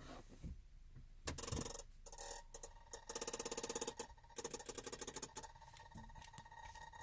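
Rapid electrical clicking in a 2014 Chevy Silverado that won't crank, about a dozen clicks a second for about a second near the middle, with scattered clicks around it and a faint steady high tone. This is the clicking that comes with the truck's no-crank fault.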